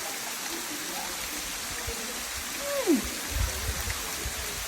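Steady rush of a waterfall's falling water, with a short, falling vocal murmur about three seconds in and a few low bumps just after.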